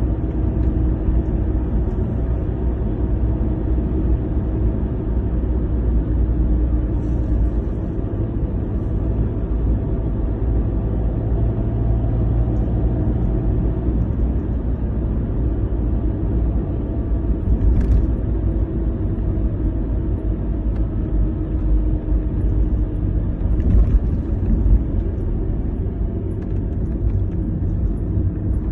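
Cabin noise of a car driving on a motorway: a steady low rumble of tyres and engine heard from inside the car. There are a couple of faint ticks late on.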